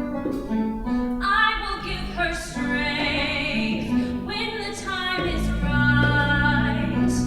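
Musical-theatre song: a voice holding long sung notes over instrumental accompaniment with a sustained bass line.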